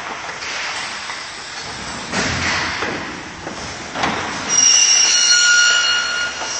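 Workshop noise as a window frame is assembled by hand: scraping and handling noise, with a high-pitched squeal lasting about two seconds near the end.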